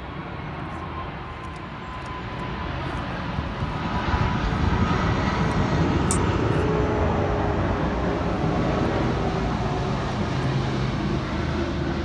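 Engine noise from some distance away: a steady rushing sound with faint, slowly drifting tones that swells over the first four seconds and then holds.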